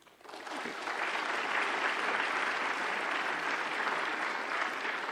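Audience applauding, building up just after the start and then holding steady.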